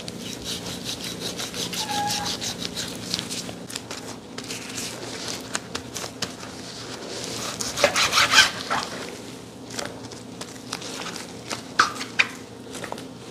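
A knife sawing back and forth through raw beef sirloin on a cutting board, in quick, even strokes for the first few seconds. A louder spell of scraping and knocking comes about eight seconds in, and a few sharp knocks near the end.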